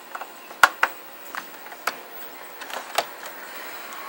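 Sharp clicks and knocks, five or six of them at uneven intervals, the loudest about half a second in: test-harness plugs being handled and fitted into the ports of a Commodore 128's plastic case.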